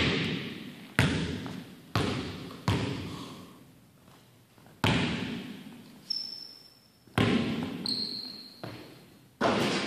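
A basketball bouncing on a hardwood gym floor: about eight separate thuds at uneven spacing, each ringing out in the long echo of a large hall, with two short high squeaks in the second half.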